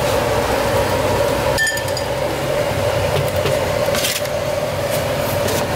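A wire noodle strainer and ceramic bowls clinking against a stainless steel cooking pot over a steady hum. There is one sharp ringing clink just under two seconds in, and a small clatter about four seconds in as the strainer is tipped over a bowl.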